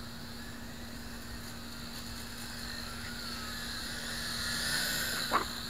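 F2-RC Guardian Alliance quadcopter's small motors and propellers whining steadily in flight. The pitch wavers with the throttle and swells a little louder about five seconds in. A brief sharp click follows just after.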